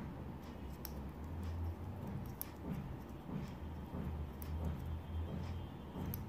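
Scattered light ticks and soft rustling from a tatting shuttle and thread being handled while double stitches are worked, over a low hum.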